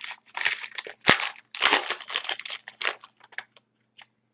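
Hockey card pack wrapper crinkling and being torn open, in a run of short rustling bursts with one sharp snap about a second in.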